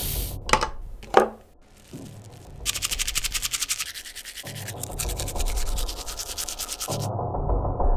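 Toothbrush scrubbing teeth in fast, even back-and-forth strokes for about four seconds, after two sharp knocks in the first second and a half.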